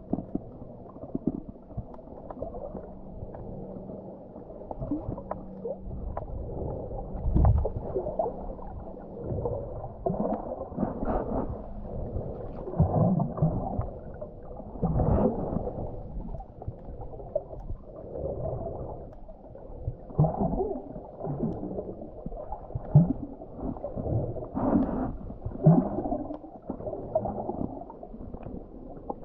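Muffled underwater sound from a camera below the surface: water gurgling and sloshing, with irregular swells and knocks. Nothing is heard above a low, dull range.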